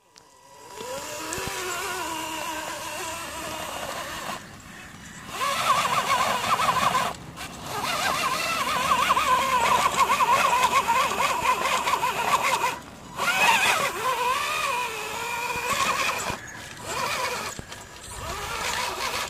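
Electric 80-turn motor and gear drivetrain of an Axial Wraith RC rock crawler whining as it crawls under load, the pitch rising as it spins up in the first second and then wavering up and down with the throttle. The whine stops briefly four times.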